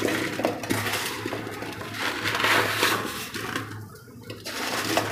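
A hand mixing chopped raw mango, gunda berries and garmar root with salt and turmeric in a large metal bowl: a wet rustling of the pieces with many small knocks against each other and the bowl, swelling and easing as the hand works.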